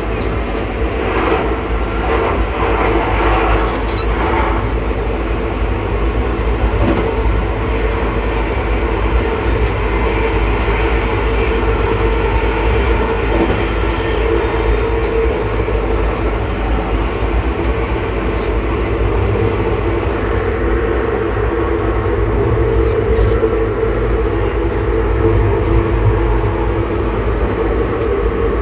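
Class 334 electric multiple unit running at steady speed: its traction motors give off a steady, unchanging whine over the low rumble of the running gear, heard from the gangway end of the coach.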